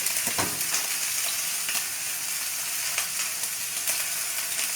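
Steak frying in hot oil in a pan: a steady sizzle with scattered crackles and pops.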